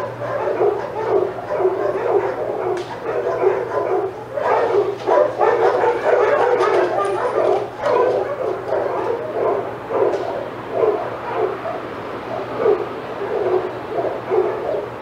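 Several dogs barking excitedly at once, many barks overlapping in a continuous din, thickest a few seconds in.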